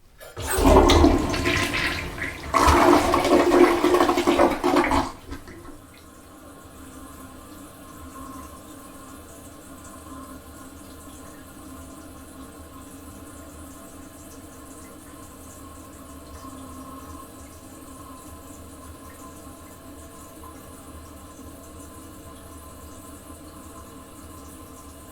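Toilet flushing in a small bathroom: a loud rush of water for about five seconds, in two surges. It then drops to a much quieter, steady hiss with a faint tone as the cistern refills.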